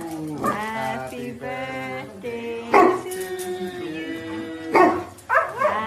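Husky howling in several drawn-out calls that bend up and down in pitch, with two louder, sharper cries about three and five seconds in. Music plays underneath.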